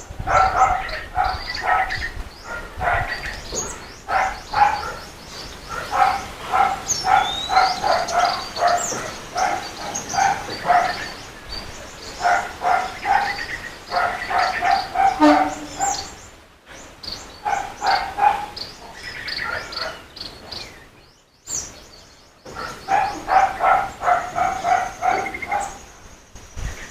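Runs of short, repeated animal calls, several a second, in bursts with brief pauses between them.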